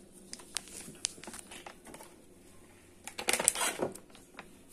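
Scattered light clicks and taps of ingredients being handled, then a short crinkly rustle about three seconds in, as of a plastic spice packet being handled.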